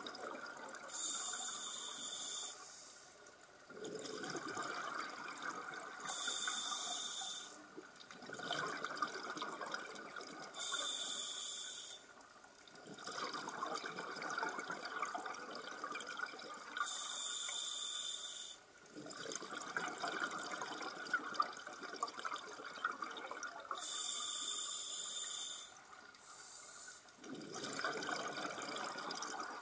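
A scuba diver breathing through a regulator underwater. A short hiss on each inhalation alternates with a longer bubbling rush of exhaled air, in a steady cycle of about five breaths.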